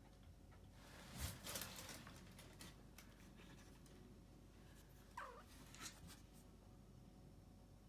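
A Munchkin kitten gives one faint, thin meow about five seconds in, falling in pitch. A brief rustling noise about a second in is louder than the meow.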